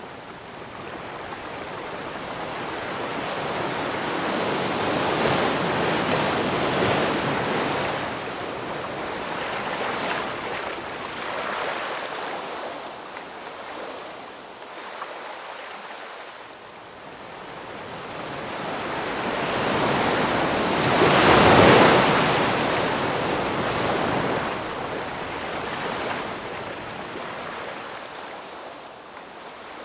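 Ocean waves surging in and washing back: one wave builds to a peak about five seconds in, and a larger, louder wave crashes about twenty-one seconds in, then fades.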